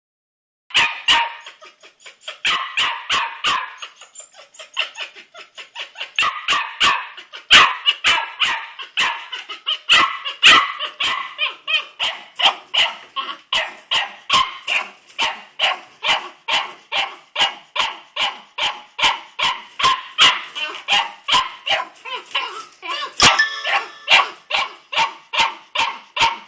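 A puppy barking over and over in short, high-pitched yaps, about two a second.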